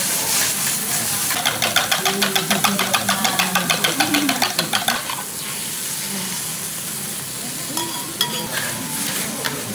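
Eggs beaten in a small metal cup, a quick even clicking at about six strokes a second for about three and a half seconds, over the steady sizzle of bitter melon frying on a steel teppanyaki griddle. The clicking stops about five seconds in; the beaten egg then goes onto the hot griddle, which keeps sizzling.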